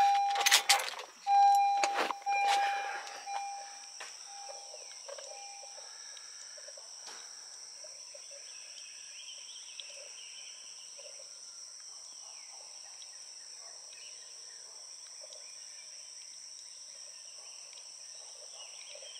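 A car's electronic warning chime pulsing and fading out in the first few seconds, with a couple of clicks. After that comes a steady, high insect buzz with birds calling faintly.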